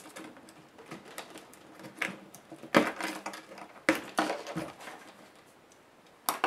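Clicks, taps and light rattles of small plastic and metal parts being unclipped and handled on a laptop motherboard. There are sharp clicks about two, three and four seconds in and a quick double click near the end.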